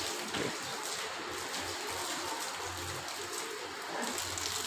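Water spraying from a hose and splashing steadily onto a bull's coat and the wet concrete floor as the animal is washed down.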